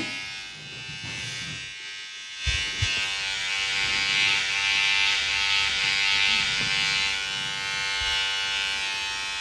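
Corded electric hair clippers running with a steady buzz while cutting a man's hair, louder from about two and a half seconds in.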